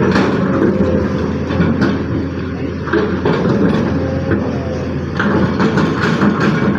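Excavator's diesel engine running steadily under work, with repeated metallic clanks and knocks, the loudest cluster near the end.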